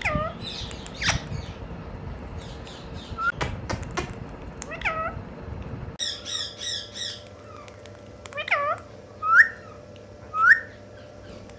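Ring-necked parakeet imitating a cat: several short, arching meow-like calls, the loudest near the end, with a quick run of high chirps about six seconds in.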